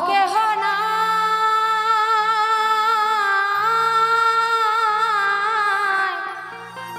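A woman singing a Baul folk song, holding one long note with vibrato that fades about six seconds in, over a steady low instrumental accompaniment.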